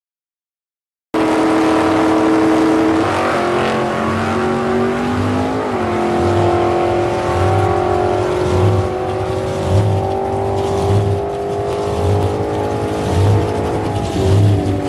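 Loud engine running hard at a drag strip. It cuts in suddenly about a second in and runs on continuously, its pitch stepping down sharply near three seconds and again near six seconds, with a lower tone climbing between the two drops.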